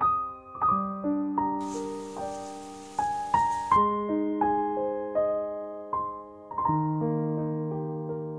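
Background piano music, single notes and chords struck about every half second and left to ring. A faint hiss sits under it for about two seconds near the start.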